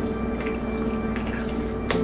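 Soft background music with steady held notes. A few wet mouth clicks from chewing a chewy strawberry candy bar sound over it, one about half a second in and a sharper one near the end.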